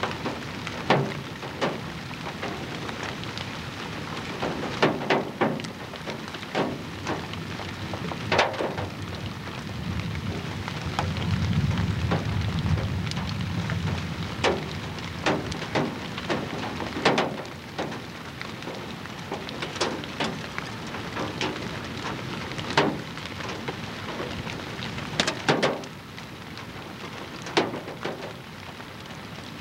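Wind buffeting a camcorder microphone outdoors: a steady rushing hiss with irregular sharp crackling pops, and a stronger low rumbling gust from about ten to fourteen seconds in.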